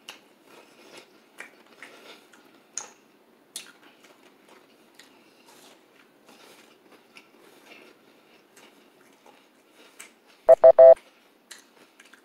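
Close-miked chewing of a bite of boudin sausage, with small wet mouth clicks. Near the end come three short, loud hummed "mm" sounds in quick succession.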